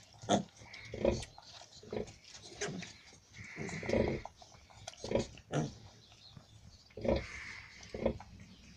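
Nursing sow giving short low grunts, roughly one a second, while her piglets suckle at the teats: the grunting a sow makes while she feeds her litter.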